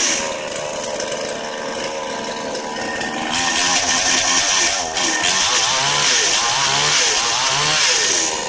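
Brand-new 58cc two-stroke chainsaw running. It holds a quieter, steady speed for about three seconds, then is throttled back up to high revs, its pitch wavering up and down.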